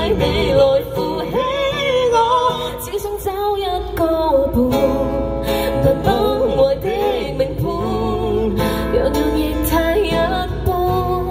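A woman singing live with acoustic guitar accompaniment.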